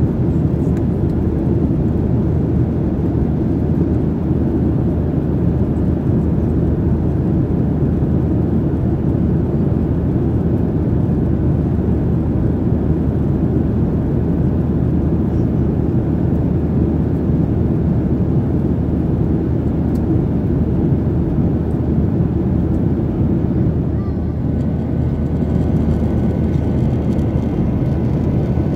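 Steady low rumble of a jet airliner's engines and airflow heard inside the passenger cabin, with a few faint steady tones appearing near the end.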